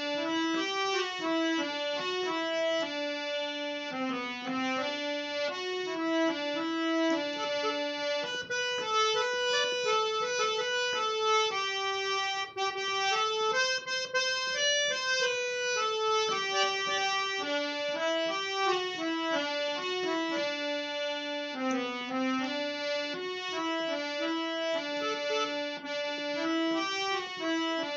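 Instrumental interlude between the verses of a ghazal: a reedy keyboard-type instrument plays a melody in stepping notes, with no singing.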